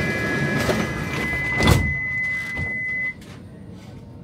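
Stockholm metro train's doors closing: a steady high warning tone sounds over platform noise, a loud thud comes about a second and a half in, and about three seconds in the tone stops and the platform noise drops away as the doors seal.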